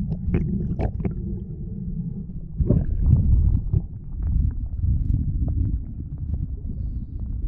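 Muffled low rumble of water moving against an underwater GoPro in its waterproof housing, with scattered faint clicks and a louder swell near three seconds in.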